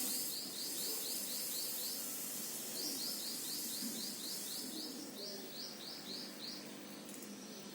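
A bird chirping: rapid runs of short, high, rising notes, about five a second, in three bouts with short breaks, over a steady background hiss.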